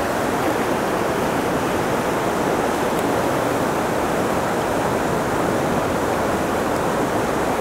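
Fast-flowing river rapids rushing steadily.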